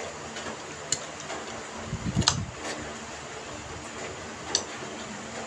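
Sounds of eating at a table: three sharp clicks of forks against plates and a dull bump about two seconds in, over the steady hiss of heavy rain.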